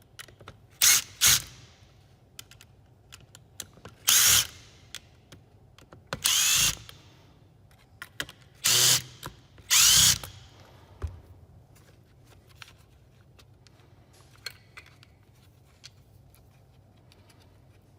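Power screwdriver running in six short bursts, backing screws out of a plastic tool housing, with small clicks of parts being handled between the runs.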